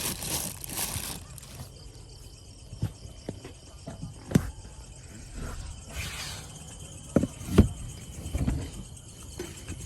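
A few scattered knocks and clatters of objects being handled while someone searches for something, over a faint steady chirring of insects such as crickets.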